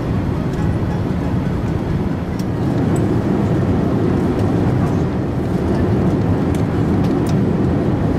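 Steady low rumble of an Airbus A380 cabin, heard from a passenger seat: engine and air-conditioning noise while the airliner is on the ground, lined up on the runway.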